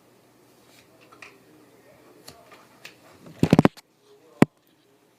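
Plastic clicks from a Nerf Nanofire toy blaster being handled: soft rustling, then a quick rattle of loud clicks about three and a half seconds in and one sharp click about a second later.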